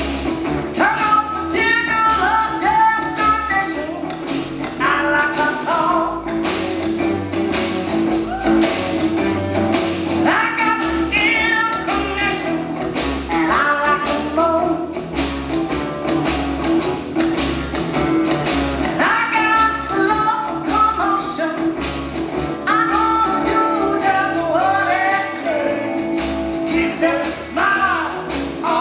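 Live band music with a woman singing lead in phrases over guitars and drums with a steady beat.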